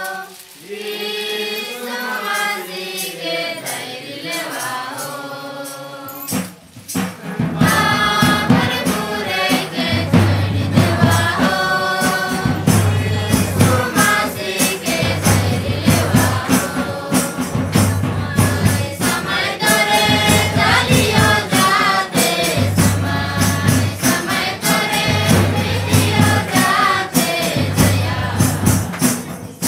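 A choir singing together with a hand-played barrel drum and jingling percussion. A single voice sings alone at first, then about six seconds in the group and the percussion come in with a steady beat.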